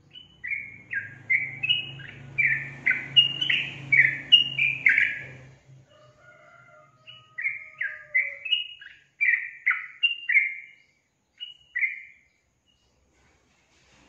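Yellow-vented bulbul (trucukan) singing: two bouts of quick, chattering notes, each note a short downward slide, the first bout about five seconds long and the second starting after a brief pause about seven seconds in.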